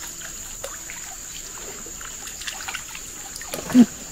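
Water trickling and dripping, over a steady high-pitched insect drone with scattered small ticks and chirps. A brief louder sound with a falling pitch comes shortly before the end.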